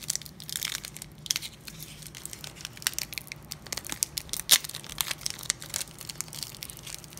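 Foil Pokémon TCG booster pack wrapper crinkling and tearing as it is picked and torn open by hand: a run of small sharp crackles, with one louder crackle about four and a half seconds in.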